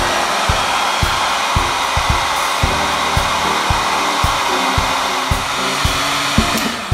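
DeWALT heat gun running, its fan blowing a steady rushing hiss; it cuts off at the very end.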